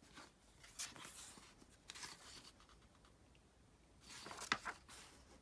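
Glossy photo book pages being handled and turned: soft paper swishes about one and two seconds in, then a louder rustle with a crisp page flap about four and a half seconds in.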